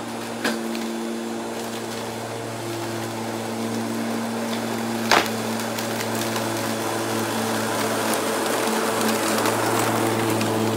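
Bosch Rotak 34-13 corded electric rotary lawnmower running and cutting grass: a steady low motor hum over the whirr of the blade, growing a little louder near the end. Two sharp clicks, one about half a second in and one about five seconds in.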